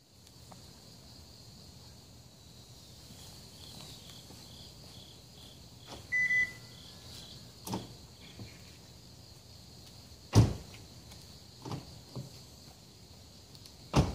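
Kia K5 (JF) lock system at work: a short electronic beep about six seconds in, followed by several sharp clicks and clunks from the door locks, the loudest about ten seconds in and another near the end.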